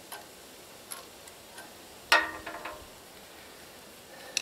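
Light clicks of a Phillips screwdriver against the metal of a small generator engine's carburetor as its mounting screws are worked loose. About two seconds in comes one louder metallic clink that rings for about half a second, and a sharp click near the end.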